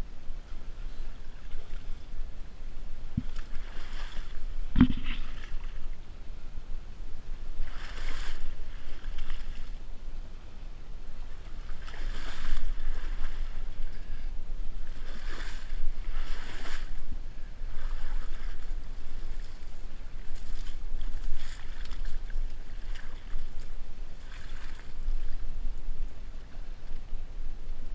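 Reed stems rustling and scraping along a kayak's hull and bow-mounted camera as the kayak moves through a dense reed bed, in repeated swishes every second or two over a low rumble. Two sharp knocks a few seconds in.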